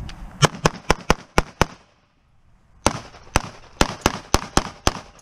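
Rapid pistol fire during a practical-shooting stage run: about six shots in quick succession, a pause of under a second, then about seven more shots.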